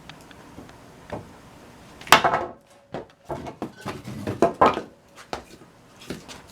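A thin-edged W2 steel chopper chopping into wood: one hard chop about two seconds in, followed by a run of lighter chops and knocks.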